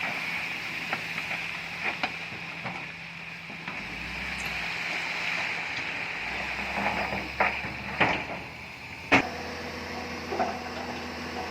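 Bulldozer's diesel engine running steadily at work, its low note shifting partway through, with several sharp knocks in the second half, the loudest about nine seconds in.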